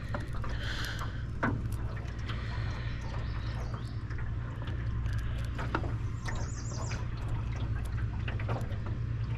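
Steady low hum with scattered small clicks and knocks, and a short run of high bird chirps a little after six seconds in.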